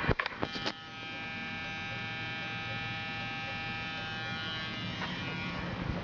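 A few sharp clicks, then a steady electric buzz from the 1981 Chevrolet Silverado's cab warning buzzer, fading out near the end.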